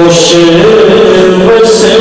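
A solo man's voice chanting an Islamic devotional salam into a microphone, holding long notes that step and slide between pitches.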